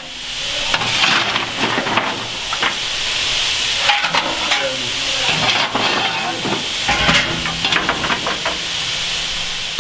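Steady hissing in the cab of a South African Class 26 steam locomotive with its firebox alight at light-up, with scattered irregular knocks.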